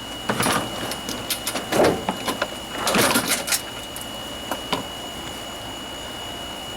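Lawnmower air-cleaner parts being handled and fitted by hand: a run of irregular clicks, rattles and short scrapes that stop about five seconds in.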